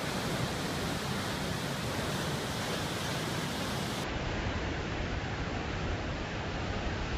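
Steady rush of ocean surf breaking and washing ashore, an even roar with no distinct events; it turns a little duller about four seconds in.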